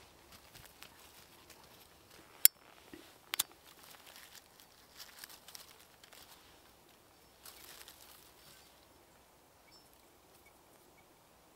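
Rustling and crinkling with a few sharp clicks: a loud single click about two and a half seconds in, a quick double click a second later, then softer rustling that dies down near the end.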